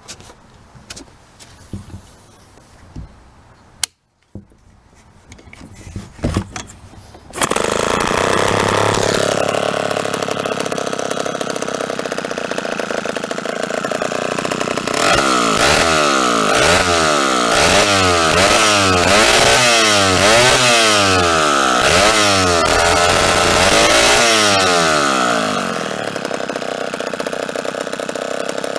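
Vintage Homelite 5-20 chainsaw's two-stroke engine starting about seven seconds in after some handling clicks, then running; from about halfway through it is revved up and down again and again, then drops back to a lower idle near the end.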